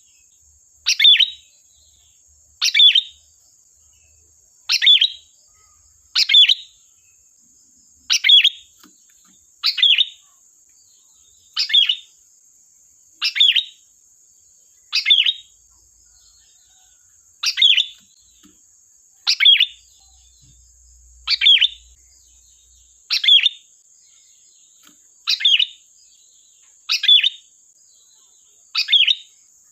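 Sooty-headed bulbul (kutilang) giving short, sharp calls over and over, about one every one and a half to two seconds, each a quick falling note.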